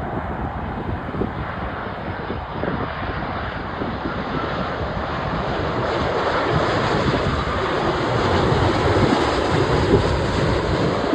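Jet airliner flying past on landing approach, its engine noise growing steadily louder to a peak about nine seconds in, with wind buffeting the microphone.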